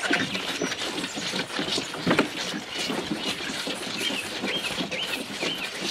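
Crowded calves jostling against a chain-link gate and feeder, with rattling and knocking throughout and one loud knock about two seconds in. Birds chirp over it.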